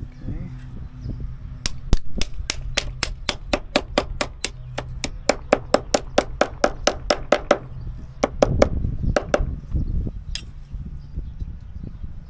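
A fast, even series of sharp clicks or taps, about five a second for some six seconds, followed by a low rumbling and a few knocks.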